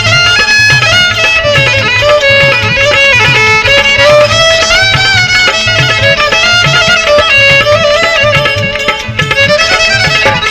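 Instrumental break in a Gujarati folk song: a gliding, ornamented melody line over a steady drum beat.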